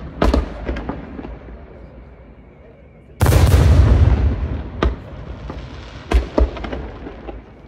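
Aerial firework shells bursting. A sharp bang just after the start is followed by a few smaller cracks that fade away. About three seconds in comes a much louder, deep boom that rolls on for over a second, then scattered single cracks.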